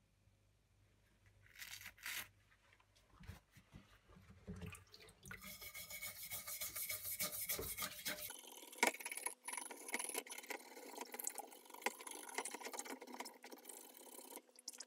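Brush scrubbing rust off the head of an Estwing steel claw hammer soaked in a shallow tub of liquid, quick back-and-forth rubbing strokes with light sloshing. A couple of short strokes come about two seconds in, then steady scrubbing from about five seconds until near the end.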